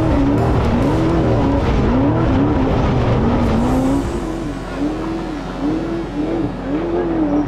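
Spec Trophy Truck's V8 engine revving up and down over and over, its pitch rising and falling about every three-quarters of a second as the truck races over rough desert whoops. The first part is heard inside the cab. About four seconds in it becomes a little quieter, heard from beside the course as the truck approaches.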